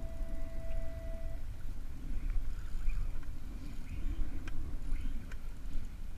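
Wind rumbling on the microphone and sea water washing around a small sit-on-top kayak. A steady high tone carries over from before and stops about a second and a half in, and two faint clicks come near the end.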